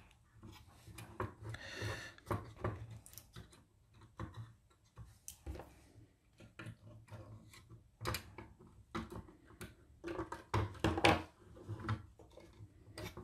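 Scattered small plastic clicks, taps and scrapes as the grey plastic fascia of a camper control unit is handled and pressed back onto its housing, its clips snapping home. The clicks come irregularly, thickest near the end.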